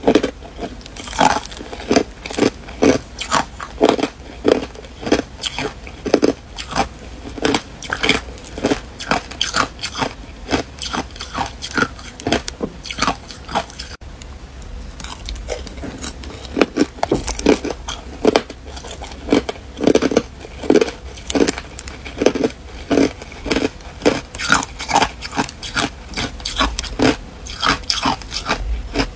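Hard ice cubes and crushed ice being bitten and crunched between the teeth, a quick run of sharp crunches about two a second, with a short lull about halfway through.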